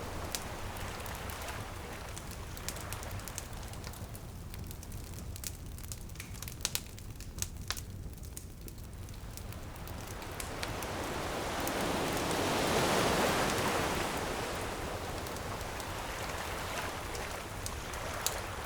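Ocean wave surging in and washing back, swelling and fading about halfway through, over the crackle of a bonfire with scattered sharp pops.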